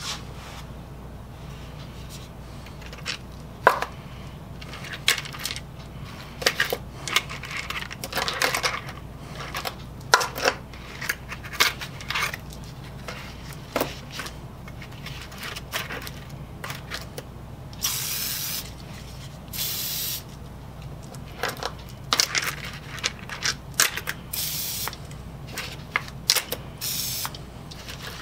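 Steel pipe-threader dies and their wire spring clips clicking and clinking against each other as they are handled, with stretches of rustling paper towel, over a low steady hum.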